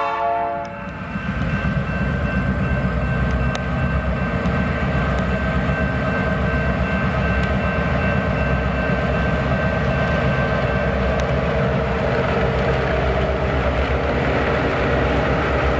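A diesel train's horn cuts off just under a second in, then the train runs past with a loud, steady rumble of engines and wheels on rail, under a faint high steady whine that stops about eleven seconds in.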